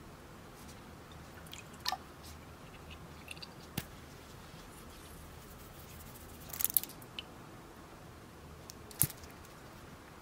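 A few sparse, light clicks and taps as ingredients and a spoon meet a ceramic mixing bowl, over a faint steady hiss. The sharpest come about 2, 4 and 9 seconds in, with a quick cluster of clicks near 7 seconds.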